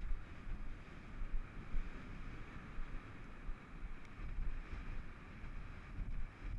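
Wind rushing over a rider-mounted camera's microphone as the horse gallops across a grass field, with irregular low thumps underneath.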